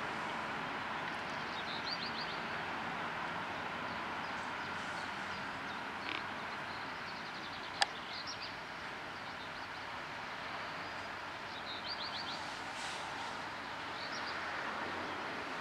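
Steady rail-yard background noise, with a bird giving short high trills a few times and a single sharp click about eight seconds in.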